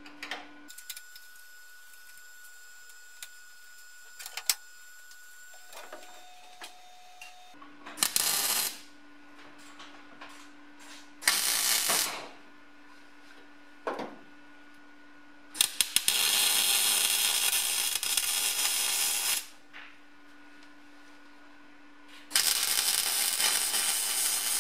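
MIG welder plug-welding a steel patch panel into a car's rear floor: four bursts of crackling, hissing arc. Short ones come about 8 and 11 seconds in, then a longer run of about four seconds around 16 to 19 seconds, and another near the end.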